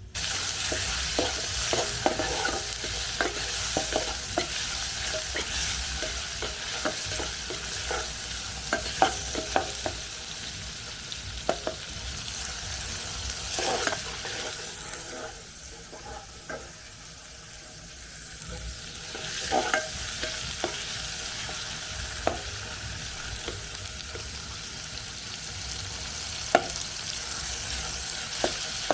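Food sizzling as it fries in a pan, with a utensil stirring it and knocking and scraping against the pan. The sizzle eases for a few seconds about halfway through, then picks up again.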